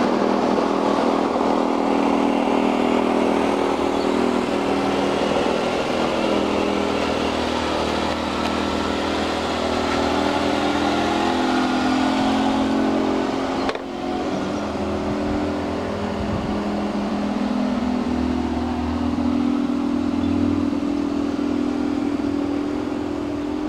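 Model aircraft engine in a garden-railway Bo-Bo locomotive running steadily while pulling a long goods train, its pitch wandering up and down with the radio-controlled throttle and rising near the end.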